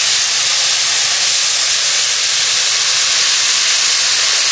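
Steady hissing sizzle of vegetables stir-frying in a hot frying pan, with a pot of egg noodles at a rolling boil beside it.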